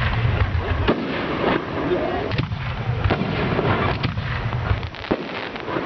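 Fireworks bursting overhead: a string of irregular sharp bangs, several a second at times, over the crackle and rumble of the display.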